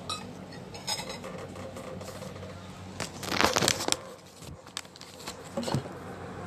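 Paper food wrapping rustling and crinkling as it is handled close to the microphone, loudest for about a second starting about three seconds in, with a few light clicks and knocks before it.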